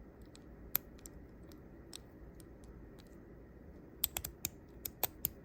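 Stainless steel Metal Toys DZ TOPB fidget slider being slid back and forth on its metal rails, which have no magnets. It gives sharp clicks: a few scattered ones, then a quick run of clicks near the end.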